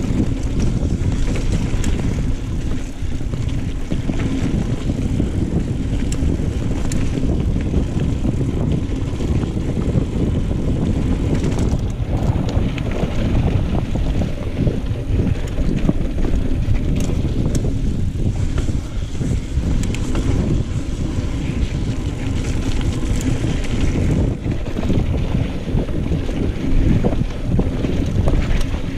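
Wind buffeting the microphone over the rolling noise of a mountain bike riding a dirt trail, with frequent small clicks and rattles from the bike.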